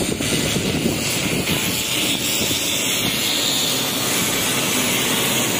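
WAP-4 electric locomotive rolling slowly past at close range: a steady rumble from its wheels and running gear, with a hiss over it.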